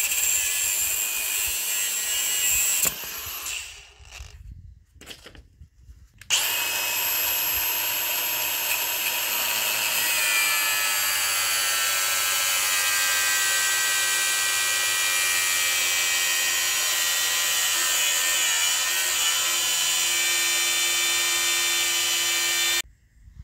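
Milwaukee M18 cordless angle grinder cutting steel with a cut-off disc: a short cut that stops about three seconds in, then after a pause a long cut in which its high whine sags slowly in pitch as the disc bites, ending abruptly near the end.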